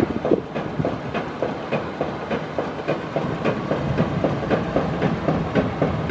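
Ford F350 Super Duty's 6.8-litre V10 gas engine running, heard as a steady, rapid, uneven clatter.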